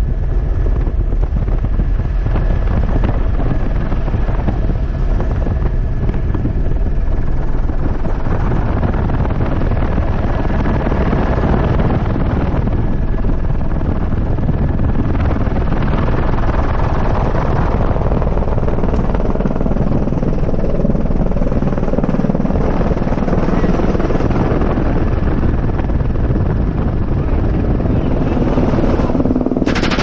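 Helicopter rotor and turbine running steadily in flight, a loud continuous drone with a thin steady high whine, heard from the open side door with wind noise.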